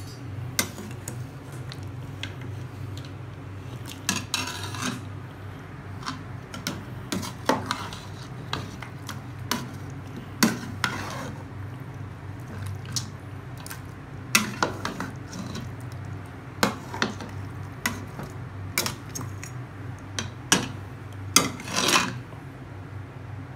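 A metal spatula stirring thick chicken curry in a large metal pot: irregular clinks and scrapes against the pot's side and bottom. A steady low hum runs underneath.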